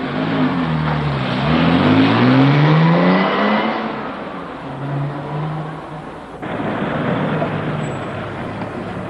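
Car engine pulling away: the revs dip, then climb steadily in pitch, fall back and settle to a steady hum. About six seconds in the sound changes abruptly to a steadier, quieter running noise.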